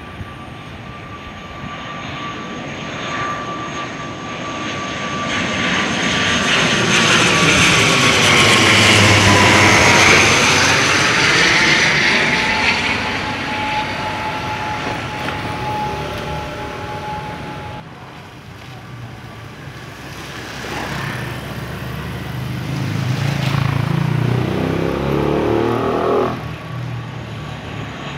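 ATR-type twin turboprop airliner passing low overhead on approach to land. The propeller and engine drone swells to a peak about ten seconds in, its whine dropping in pitch as the plane goes over, then fades. After a sudden break a second turboprop approach builds up and cuts off near the end.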